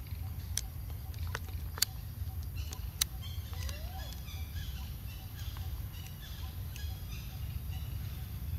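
Short, high chirping animal calls, repeated many times over a few seconds in the middle, with a few sharp clicks in the first three seconds and a steady low rumble underneath.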